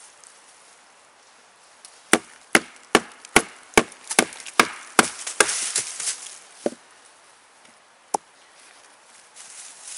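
Wooden baton striking the spine of a Bark River Sahara fixed-blade knife in A2 steel, driving the blade down through a sapling: a quick run of about nine sharp knocks, roughly two or three a second, starting about two seconds in, then a few fainter knocks and one last sharp knock near the end.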